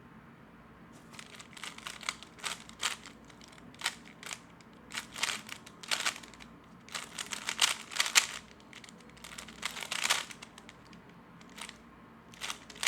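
A 3x3 magnetic speed cube being turned at full speed: rapid, irregular clacking of its layers in quick clusters, with a short lull near the end before more turns.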